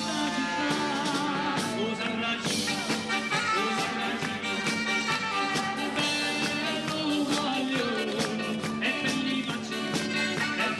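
Live band with keyboards and electric bass playing an upbeat Neapolitan pop song with a steady beat, and a male singer's voice over it.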